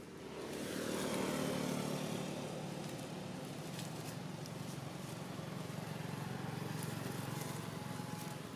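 A motor vehicle's engine running on the road close by, growing louder over the first second or so and then holding a steady drone.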